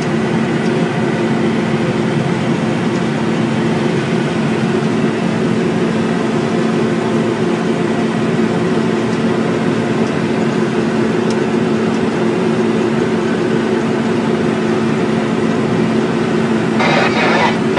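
Combine harvester running steadily at harvest load, a constant engine and machinery drone with a steady hum, heard from inside the cab. A louder rattling hiss joins in near the end.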